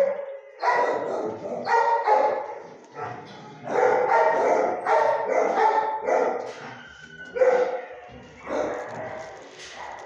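Dogs barking repeatedly, in clusters of barks with short gaps, heaviest in the middle.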